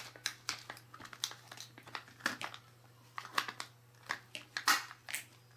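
Kinder Surprise egg being unwrapped and opened by hand: the foil wrapper crinkling in irregular short crackles and clicks.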